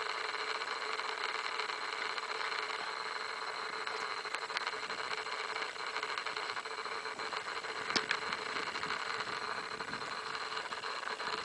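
A vehicle engine idling steadily, with one sharp click about eight seconds in.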